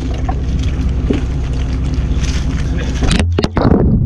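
Fishing boat's engine running steadily under a noisy haze. About three seconds in the sound changes abruptly to a duller, muffled sound with a few sharp knocks.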